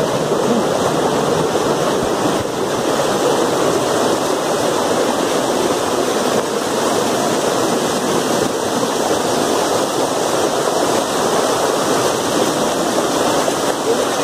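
Small waterfall pouring over rock close by: a loud, steady rush of falling water.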